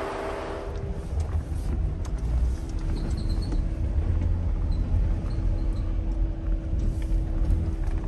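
Motor vehicle running and moving: a steady engine hum under an uneven low rumble that grows louder about a second in.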